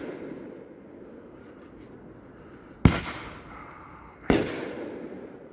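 Consumer firework cake (an 8-shot cake) firing: two sharp bangs about a second and a half apart, each echoing away slowly. At the start the echo of an earlier shot is still dying away.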